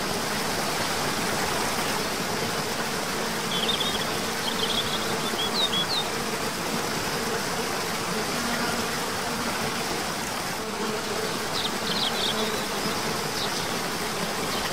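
Waterfall cascading over rock tiers into a pool: a steady rush of falling water. Two short bursts of quick, high bird chirps come through it, a few seconds in and again near the end.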